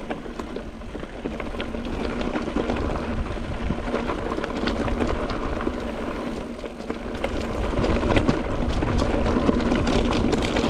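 Rockrider XC900S mountain bike ridden over rough, stony ground: a constant low rumble of the tyres with rapid clicks and rattles from the bike. It grows louder about two seconds in and again near the end.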